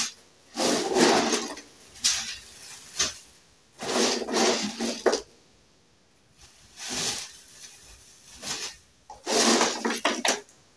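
Dried homemade noodles rustling and rattling as they are scooped by hand from a bowl and dropped into a crinkling plastic bag. The sound comes in several irregular bursts with short quiet gaps.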